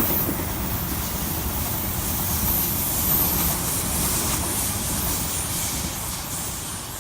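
Sydney Trains Waratah electric multiple unit passing beneath the bridge, a steady rumble and hiss that eases slightly near the end.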